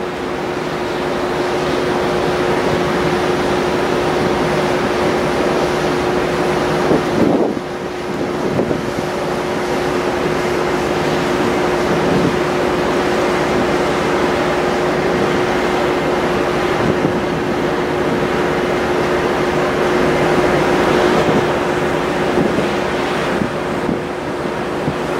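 Steady drone of a large car ferry under way, a constant low hum over a broad rush of wind on the microphone and sea water, briefly dipping about seven seconds in.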